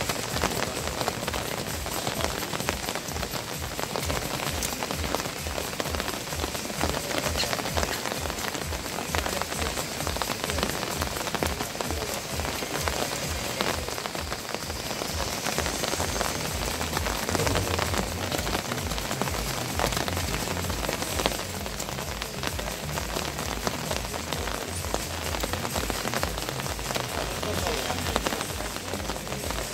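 Steady rain falling on the arena and nearby surfaces, a dense hiss with fine crackling drops.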